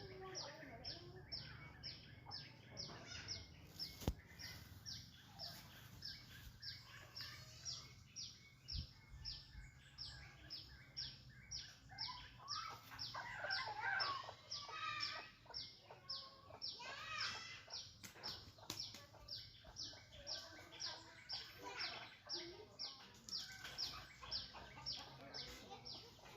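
Bird repeating a short, high chirp that sweeps downward, about two calls a second, steadily throughout. Other bird calls join in for a while midway.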